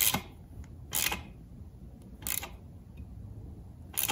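Four short clicking bursts about a second apart from hand-tool work as a thread-taped pipe plug is fitted into the 904 transmission case.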